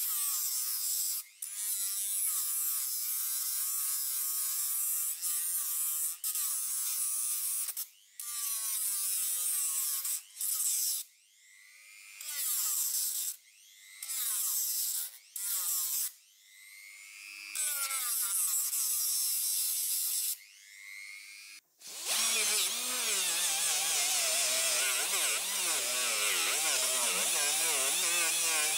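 Handheld rotary tool spinning a polishing wheel against a metal pump casting: a high, wavering whine that shifts in pitch as the wheel bears on the metal. Through the middle it cuts out and restarts repeatedly, the pitch falling each time it spins down; from about two-thirds of the way in a louder, lower-pitched run takes over.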